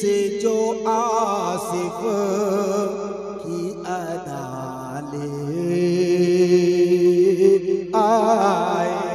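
A man singing a naat into a microphone, drawing out long ornamented notes with a wavering vibrato, over steady held notes lower down; a new sung phrase starts about four seconds in and another near the end.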